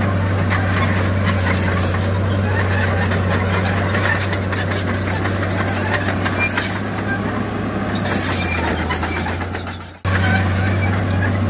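Heavy diesel earthmoving machinery running steadily under a dense clattering noise, with a constant low engine hum. The sound fades a little and cuts off abruptly about ten seconds in, then resumes straight away.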